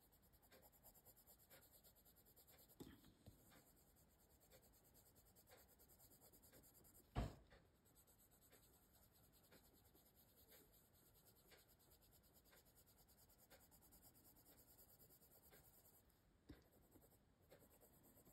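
Faint scratching of a coloured pencil shading on paper in short, repeated strokes, with a single sharper knock about seven seconds in.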